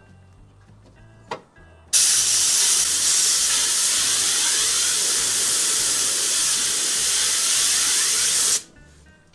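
A loud, steady hiss of air or spray released under pressure. It starts abruptly about two seconds in and cuts off suddenly after about six and a half seconds.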